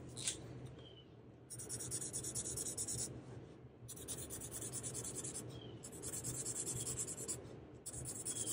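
Marker scribbling quickly back and forth on a paper card, colouring in squares: three spells of scratchy strokes, each about a second and a half long, with a fourth starting near the end. A small click comes near the start.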